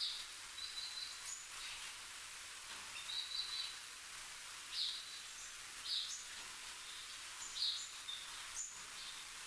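Birds giving a series of short, high chirps, one every second or so, over a steady outdoor hiss.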